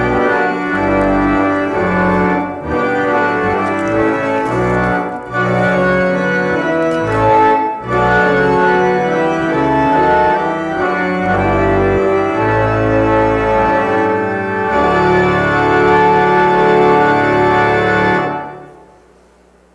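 Organ playing a postlude of sustained, held chords over a full bass line, right after the dismissal. It stops about eighteen seconds in and dies away.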